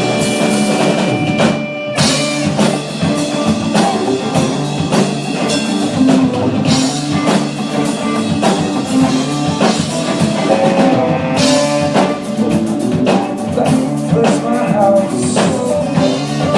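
Rock band playing live with drum kit and electric guitar, an instrumental passage between vocal lines.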